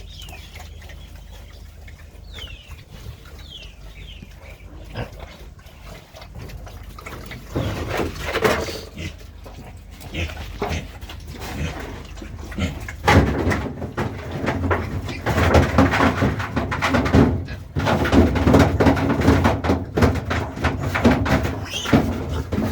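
Pigs grunting and squealing, sparse at first, then loud and nearly continuous for the second half.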